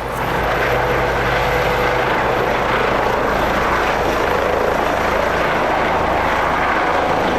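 Helicopter running with a loud, steady rotor and engine noise.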